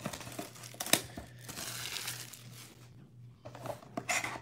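Plastic shrink wrap crinkling as it is peeled off a cardboard trading-card box, with a sharp knock about a second in and another near the end as the box is handled.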